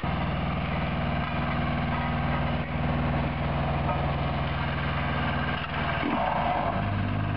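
Engine of an asphalt roller running steadily, its note shifting about six seconds in.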